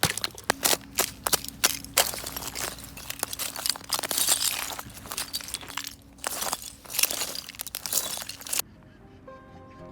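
Thin ice on the ground being broken and crushed: a run of sharp separate cracks, then a dense crunching and crackling of shattering ice that stops suddenly about a second before the end.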